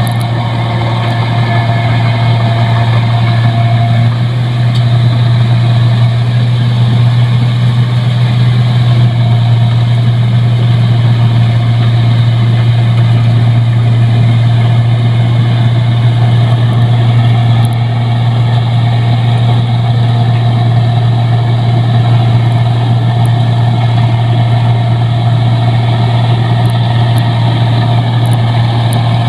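Rice combine harvester's engine running steadily, a loud continuous drone with a strong low hum; the level dips slightly about 18 seconds in.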